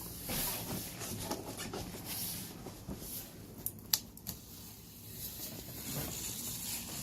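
Handling noise: irregular rustling and light knocks, with one sharp click about four seconds in, as a large cardboard TV box is handled.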